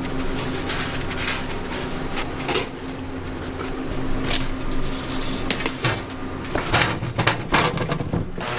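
Food-preparation clatter: repeated knocks and clicks of utensils and containers being handled, over a steady machine hum. The knocks grow busier in the second half.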